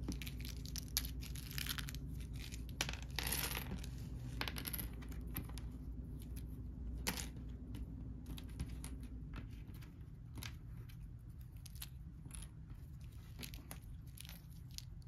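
Small cardboard game tokens being dropped and spread by hand on a wooden table: scattered light clicks and taps with short rustling slides, one sharper tap about seven seconds in.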